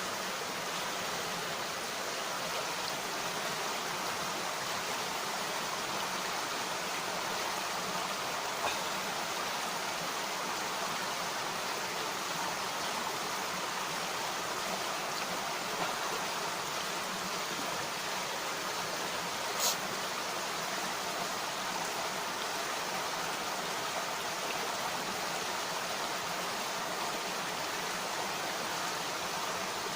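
Mountain stream rushing steadily over rocks, with a few brief clicks, the loudest about two-thirds of the way in.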